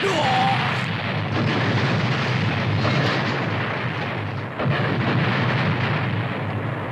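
Cartoon explosion sound effect: a long, loud, continuous blast noise, with a fresh blast about four and a half seconds in as the monster is blown apart.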